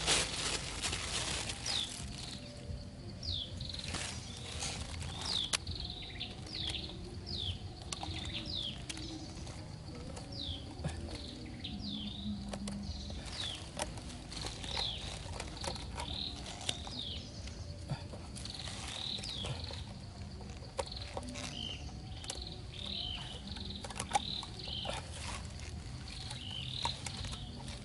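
Outdoor ambience of short, high chirping calls, each sliding downward, repeating about once or twice a second, over scattered small clicks and rustles of hands working wooden stakes and string.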